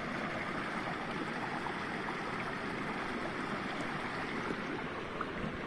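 River water running steadily over rocks, a continuous rushing of shallow white water.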